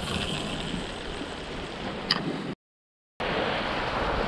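Sea surf washing against a rocky ledge, a steady rushing noise mixed with wind on the microphone, with a sharp click about two seconds in. The sound drops out completely for about half a second at an edit, then the surf wash carries on.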